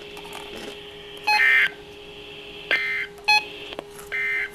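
Radio broadcast carrying four short bursts of electronic signalling tones, uneven in length, in the style of touch-tone (DTMF) control tones. A faint steady hum lies underneath.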